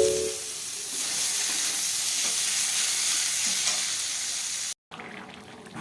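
Cauliflower and potato curry frying in a pan, a steady high sizzling hiss that cuts off suddenly near the end.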